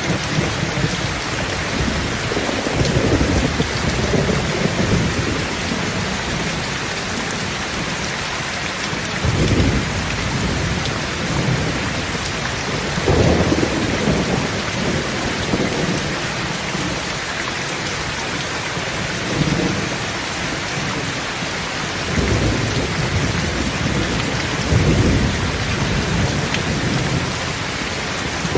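Thunderstorm: steady heavy rain with thunder rumbling low several times, the loudest rolls a little over a quarter of the way through and near the end.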